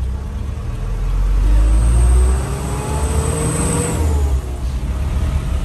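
Isuzu Elf NKR light truck's diesel engine heard from inside the cab, a steady low rumble that rises in pitch as the truck accelerates over a couple of seconds, with a faint high whine, then eases off.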